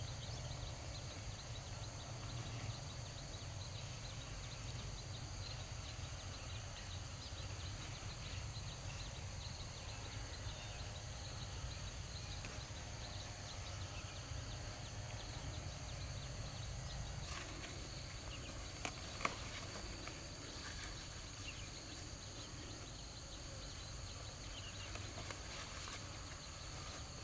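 Outdoor ambience of insects chirring in a steady high drone over a low rumble, with a few sharp clicks about two-thirds of the way through.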